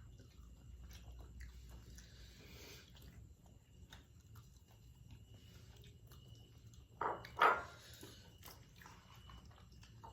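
Close-mic chewing and biting sounds of someone eating, with small wet clicks and smacks, and two loud short sounds, half a second apart, about seven seconds in.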